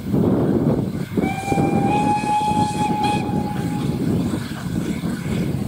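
Steam locomotive whistle blown once, one long blast of about three seconds starting a second in, its pitch stepping up slightly partway through, over a steady low rumble.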